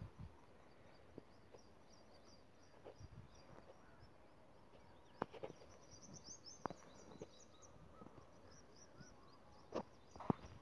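Quiet rural ambience: small birds chirping faintly and continuously, high-pitched, with a few soft knocks scattered through it.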